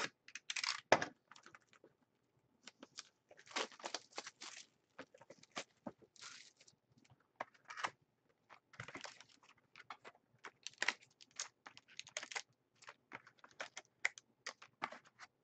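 Plastic shrink wrap being torn and crinkled off a trading card box, a dense string of irregular crackles and sharp ticks. Near the end the cardboard box is opened and foil card packs are pulled out and handled.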